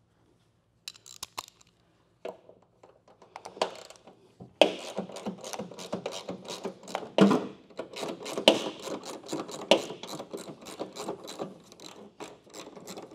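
Hand ratchet clicking as a bolt is worked loose, with metal scraping between the clicks. A few scattered clicks come first, then a dense, rapid run of ratcheting from about five seconds in.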